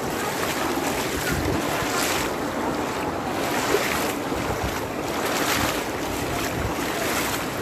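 Feet splashing and sloshing through shin-deep floodwater in a street as people wade along, with irregular swishes about once a second and wind buffeting the microphone.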